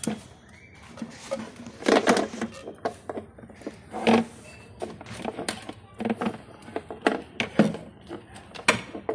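Irregular clicks, taps and rustles of wiring and plastic connectors being handled and plugged in at a scooter's motor controller box.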